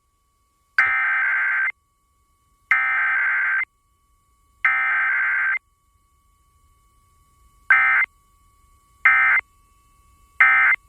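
EAS digital SAME data bursts: three screechy header bursts of about a second each, two seconds apart, then three short end-of-message bursts, with no attention tone or voice between them. This header-then-end-of-message sequence is an automated Required Weekly Test. A faint steady tone hums underneath.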